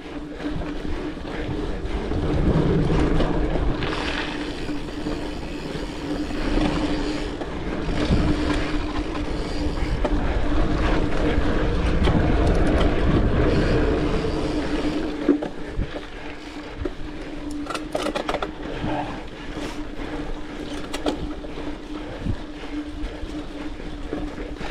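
Mountain bike being ridden along a dirt trail: tyre and riding noise with wind rushing over the microphone, swelling as it picks up speed, over a steady hum. A run of sharp clicks and rattles from the bike comes about three-quarters of the way through.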